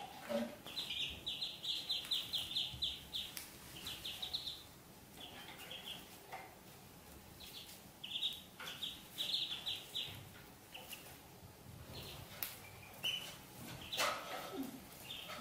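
Ducklings peeping: runs of rapid, high chirps, several a second, broken by short pauses. A brief noise near the end.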